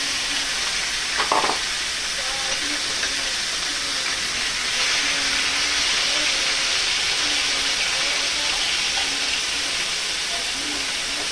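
Marinated chicken pieces sizzling steadily as they fry in hot refined oil in a pan on high gas, being turned with a spatula, the sizzle growing a little louder about halfway through. A brief knock about a second in.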